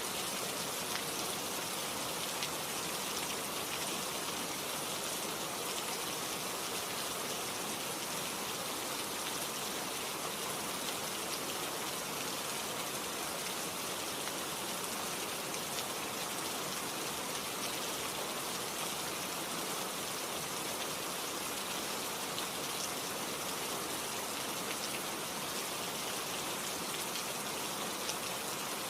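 Heavy rain falling steadily, a dense even hiss of drops with fine scattered patter.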